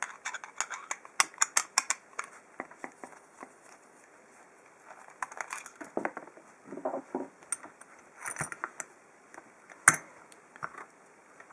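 Small metallic clicks and taps as a brass padlock and its oval pin-tumbler cylinder are handled and taken apart. A quick run of clicks comes in the first two seconds, then scattered ones, with one sharper click near the end.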